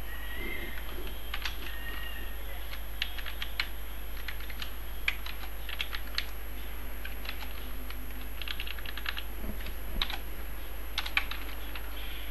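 Computer keyboard being typed on, irregular keystrokes in short bursts with pauses, over a steady low hum.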